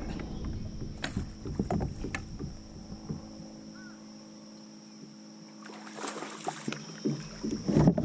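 Scattered knocks and clatter of fishing gear against a plastic fishing kayak, then water splashing near the end as a hooked largemouth bass thrashes at the surface beside the kayak.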